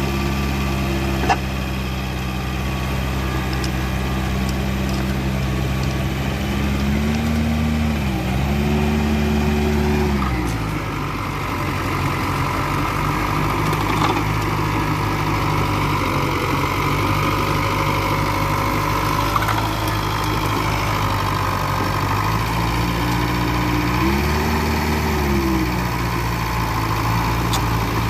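Mitsubishi BD2e bulldozer's diesel engine running steadily. Its pitch rises and drops back twice, once about a quarter of the way in and again near the end, with a sharp click about a second in.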